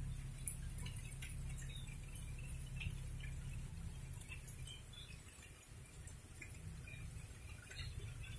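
Light rain dripping onto leaves, scattered faint drips over a steady low rumble.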